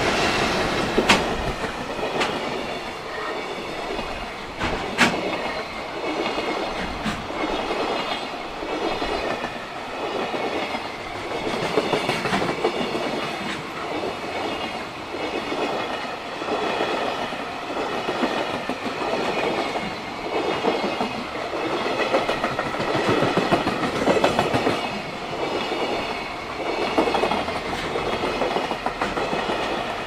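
Long freight container train rolling past at close range: a steady rumble of Koki container wagons with clickety-clack of wheels over rail joints and occasional sharper clanks.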